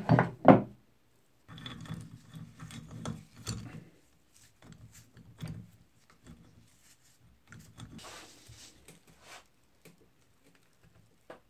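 A few sharp metal knocks, then the links of a chain wrench rattling and scraping against a rusty cast-iron meat grinder as the chain is wrapped around its front ring, with scattered small clanks of handling.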